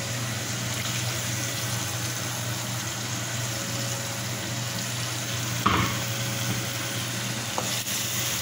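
Chicken and tomato sauce sizzling in a pot on the stove as the blended tomato sauce is poured in and stirred with a wooden spatula. A single sharp knock comes about six seconds in, with a couple of light clicks shortly after.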